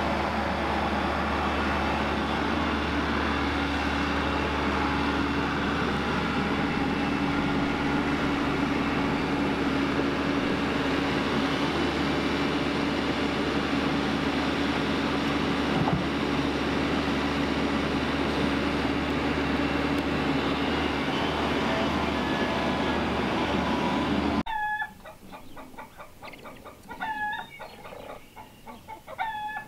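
Bobcat E45 mini excavator's diesel engine running steadily with a low hum while it lifts and places logs, with one knock about two-thirds of the way through. It cuts off abruptly near the end and gives way to chicks peeping in short chirps.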